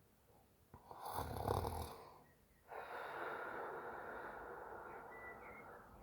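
A sleeping woman snoring. One loud, deep snore comes about a second in, then a short pause and a longer, softer breathy sound that fades near the end.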